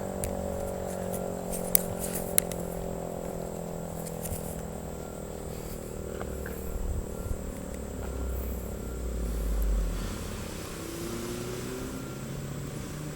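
Model 5A electromechanical siren spinning down after being switched off: a stack of tones slowly falls in pitch and fades. There are two sharp clicks about two seconds in, and a low rumble swells around nine seconds in.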